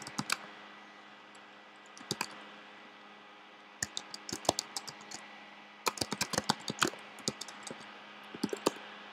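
Typing on a computer keyboard: short runs of keystrokes with pauses between, the longest runs about halfway through and around two-thirds of the way in, over a faint steady hum.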